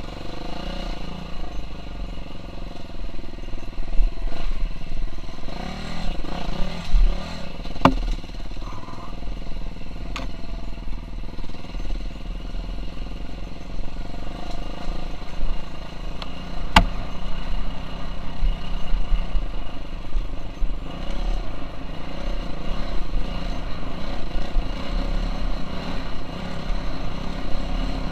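KTM 350 SX-F's four-stroke single-cylinder engine running under changing throttle as the dirt bike is ridden, with three sharp knocks over the ride.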